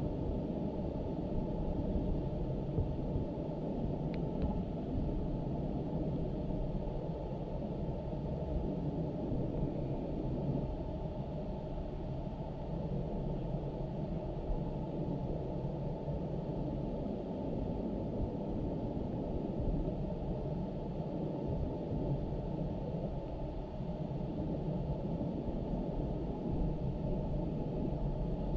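Steady low rumbling noise with little above it and no clear voices or game sounds: a fault in the recorded audio.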